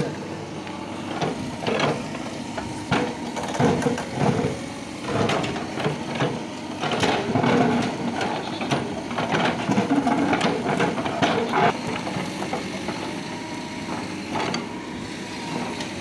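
Mahindra SX90 backhoe loader running while its bucket digs into broken brick and concrete rubble, giving irregular knocks, clatters and scrapes over the engine's steady sound.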